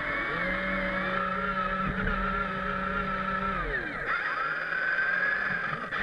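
Electric motors of a remote-control Bobcat T190 model track loader whining under their speed controllers, the pitch wavering as it drives. A second, lower motor note comes in shortly after the start, holds steady, then winds down and stops a little past halfway.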